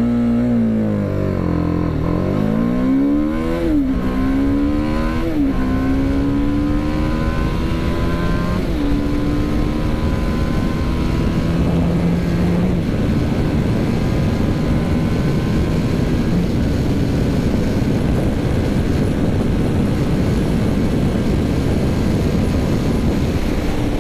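TVS Apache RR 310's single-cylinder engine under full-throttle acceleration from a standing launch in track mode. The revs sag as the clutch bites, then climb and fall back at quick upshifts about 4 and 5 seconds in, and again near 9 seconds. After that the pitch rises slowly in the higher gears while wind noise builds and takes over at high speed.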